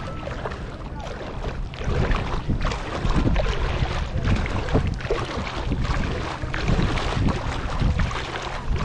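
Wind buffeting an action camera's microphone just above shallow sea water, a steady low rumble, with small splashes and lapping of the water close by.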